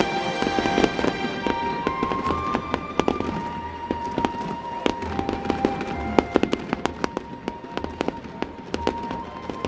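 Fireworks crackling and popping in quick, irregular cracks, thicker from about three seconds in, with music playing underneath.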